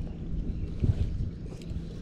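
Wind rumbling on the microphone with a faint steady low hum underneath, and a dull thump just under a second in.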